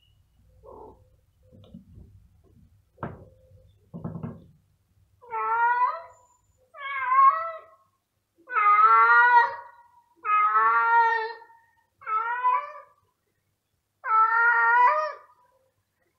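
Male cat meowing loudly, six drawn-out calls with a wavering pitch, coming one after another after a few faint knocks. It is a tomcat calling while searching for a female.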